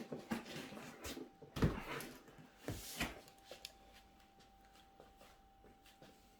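Handling and opening a cardboard monitor box: scattered knocks, scrapes and rustles, the loudest knock about a second and a half in, fading to faint taps after about four seconds.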